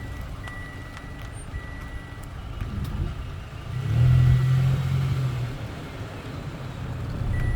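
Car running on the road, heard from inside the cabin, with the unbuckled-seatbelt warning chime sounding in long, even high beeps at intervals. About four seconds in a louder low engine drone swells for a second or so, then eases off.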